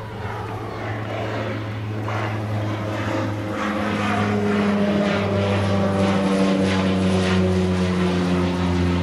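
Twin-engine propeller plane flying low overhead, its engine drone growing steadily louder, with the pitch sliding slightly lower in the second half as it passes.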